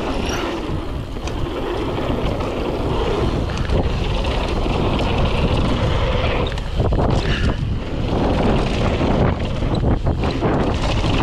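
Wind rushing over a GoPro helmet camera's microphone as a mountain bike rolls fast down a dirt trail, with the rumble of the tyres and short clattering rattles from the bike, mostly in the middle and latter part.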